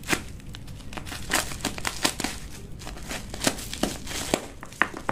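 Plastic parcel wrapping crinkling and rustling as it is pulled open by hand, in irregular crackles with a few sharper snaps.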